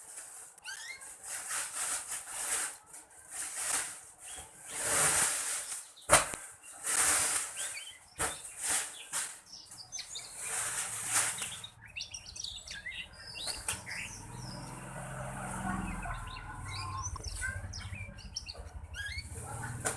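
Young black-red canary fluttering and hopping in its cage, with one sharp knock about six seconds in, then soft, scattered chirping and twittering from about halfway through: the quiet practice warble of a young canary learning to sing.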